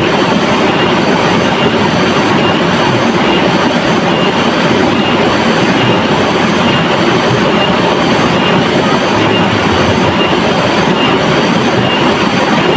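River water rushing: a loud, steady, unbroken rush with no pauses or changes.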